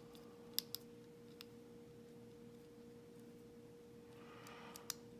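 Faint clicks of a lock pick working the pins inside a small US Fort padlock: a few sharp ticks about half a second in and again near the end, over a steady faint hum.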